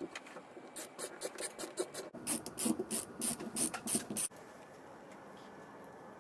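A rapid run of short scraping or rubbing strokes, about four a second, that stops suddenly after about four seconds.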